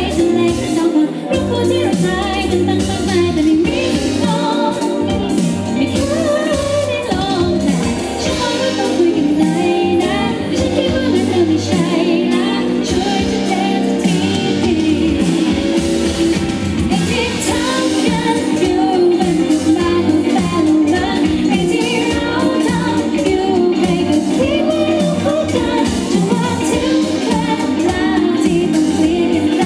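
Live Thai pop song: a woman singing lead into a handheld microphone over electric guitar, keyboards and a steady beat.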